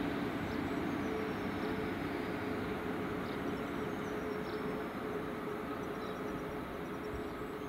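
Class 153 single-car diesel multiple unit running on the line, its diesel engine and transmission giving a steady drone with a rumble of wheels on rail, slowly fading as the unit moves away.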